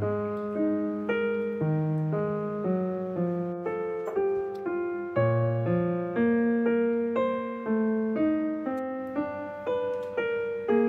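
Background piano music: a gentle melody of single notes struck about twice a second over lower bass notes, each note fading after it is struck.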